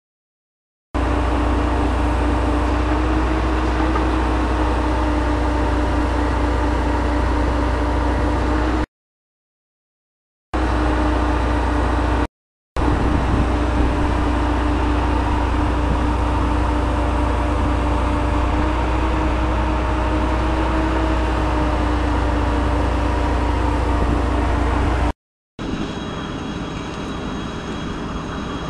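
Truck-mounted rotary borehole drilling rig running steadily: a deep engine rumble with a steady mid-pitched whine above it. The sound drops out to silence three times for a second or so, and near the end turns quieter with faint high whines.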